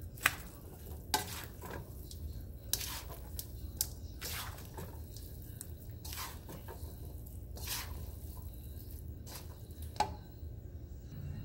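Spatula stirring and tossing stir-fried rice and glass noodles in a nonstick wok, scraping and tapping against the pan in irregular strokes over a low steady hum.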